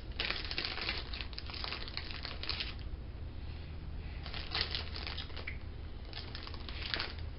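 Plastic candy bag crinkling and rustling in three spells of a second or more each.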